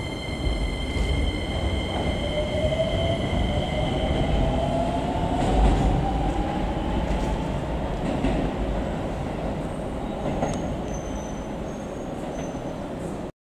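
Keisei 3050-series electric train pulling away from the platform: motor whine rising steadily in pitch as it accelerates, over a rumble of wheels with scattered clicks. The sound cuts off suddenly near the end.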